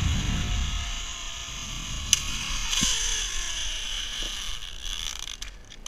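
Zipline trolley pulleys rolling along the steel cable: a steady whirring hiss with a faint tone that slowly falls as the rider slows. Wind rumbles on the microphone at first, a sharp click comes about two seconds in, and the sound dies away near the end as the trolley comes to rest.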